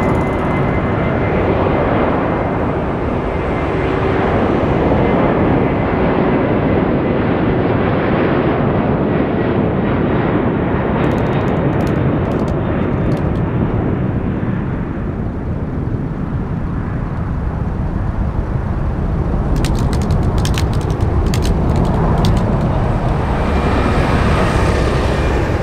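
Boeing 767-300F's twin GE CF6-80C2 turbofans at takeoff power: a steady jet roar with a high fan whine at first, turning to a deeper low rumble as the freighter lifts off and climbs away.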